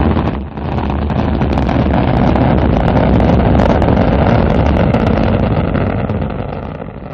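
Rocket engine rumble: a loud burst at the start, a short dip about half a second in, then a steady rumble that fades away near the end.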